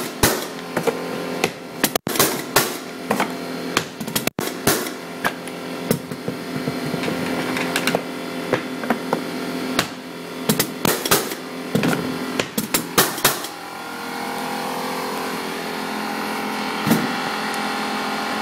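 Mallet blows nailing hardwood floorboards into place: a long run of sharp, irregular knocks, often several in quick succession. About two thirds of the way in the knocking stops and a steady hum takes over.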